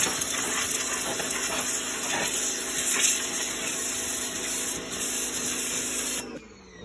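Pressure washer jet spraying a car's wheel and wheel well: a steady hiss of water over the pump's steady hum, both cutting off suddenly about six seconds in.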